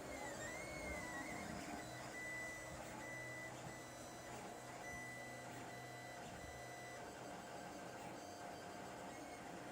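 Lulzbot TAZ 5 3D printer running, its stepper motors whining as the print head moves: a high whine wavers up and down in the first second, then comes and goes in short stretches, over a steady lower hum.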